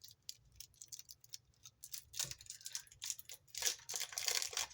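Yu-Gi-Oh trading cards being handled: scattered light clicks and flicks, then a longer papery rustle of cards sliding together about three and a half seconds in.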